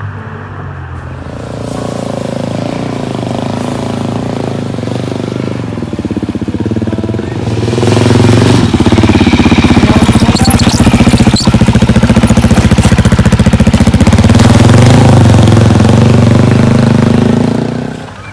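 Engine building up over the first few seconds, then from about eight seconds a Suzuki DR-Z400 single-cylinder dirt bike running loud and close under throttle as it climbs over rocks. The sound drops away sharply just before the end.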